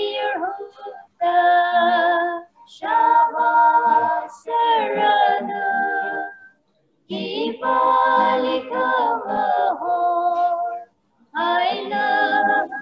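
Female voices singing a Christian worship song in Tangkhul, phrase by phrase with short breaks between. The sound drops out completely in each break.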